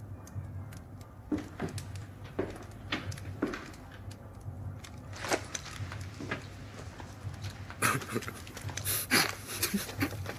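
A man panting and laughing in short breathy bursts, which come thicker and louder near the end, over a low steady hum.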